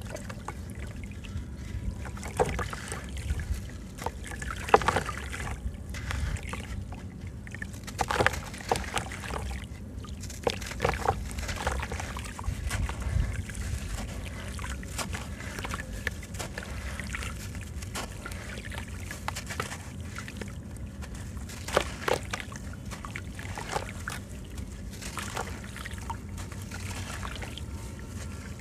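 Dry sand-cement block crumbled by hand over a tub of water: gritty crunching as it breaks, with sand and small lumps trickling and splashing into the water in uneven spurts.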